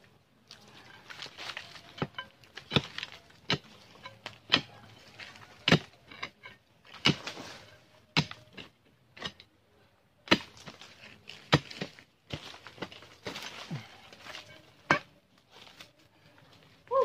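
Machete blade chopping into soil and roots at the base of a small shrub, sharp irregular strikes about once a second, with dry leaves and earth rustling between strokes as the plant is dug out.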